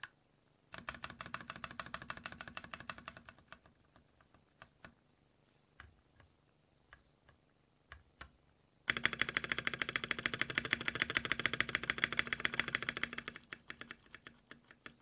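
Mechanical keyboard typing on stock Tecware Pearl Salmon tactile switches in a 60% aluminium case and plate: two long runs of rapid keystrokes, one starting about a second in and another about nine seconds in, with scattered single key presses between and near the end.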